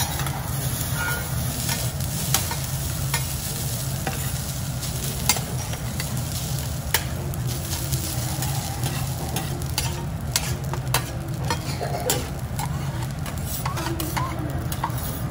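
Two metal spatulas scraping and clacking against a steel teppanyaki griddle as fried rice is chopped and turned, with sharp irregular clacks over the steady sizzle of the rice frying.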